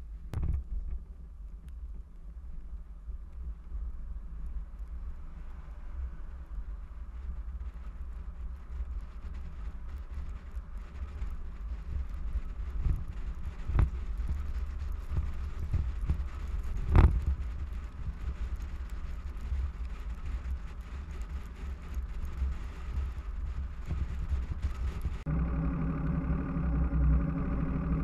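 Steady low rumble of wind and road noise on a bass boat being towed on a trailer along a wet road, with a few sharp knocks from bumps, the loudest about 17 seconds in. Near the end, distorted electric-guitar music comes in.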